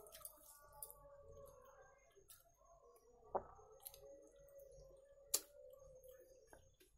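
Quiet hand-eating sounds: fingers mixing and squishing rice on a steel plate, and chewing, with a few sharp clicks, the loudest about five seconds in. A faint steady hum runs underneath.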